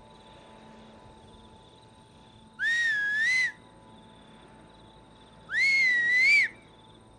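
A person whistling twice, each whistle about a second long and about three seconds apart. Each one rises sharply, holds, then lifts again just before it stops.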